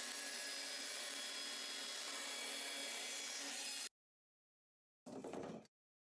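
Band saw running steadily as its blade cuts through a clear plastic sheet. The sound cuts off suddenly about four seconds in. About a second later comes a brief half-second handling noise.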